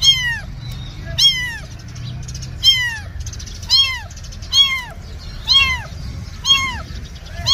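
A young kitten meowing loudly and repeatedly, about eight high-pitched cries roughly once a second, each rising then falling in pitch. It is crying out for its mother cat.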